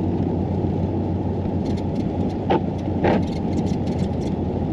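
Steady low rumble of a vehicle driving through a blizzard, heard inside the cab: engine, tyres and blowing wind. Two short knocks come about two and a half and three seconds in.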